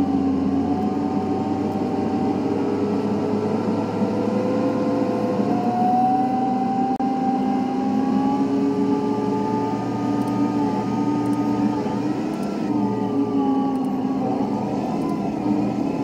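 Tractor engine running as it drives, heard from inside the cab; its pitch drifts slowly up and down.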